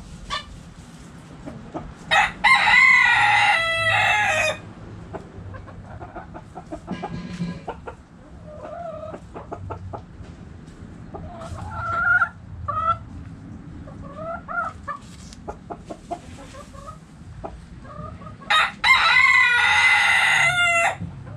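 Two long rooster crows, each about two seconds, one a couple of seconds in and one near the end. Between them, hens cluck and call in short bursts.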